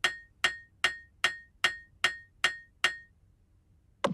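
Eight sharp metallic strikes, evenly spaced at about two and a half per second, each with a short high ring. A single duller knock follows near the end.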